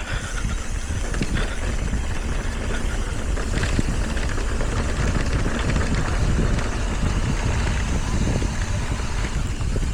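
Wind rumbling and buffeting the camera microphone as a mountain bike descends a dirt trail, with scattered clicks and rattles from the tyres and bike over rough ground.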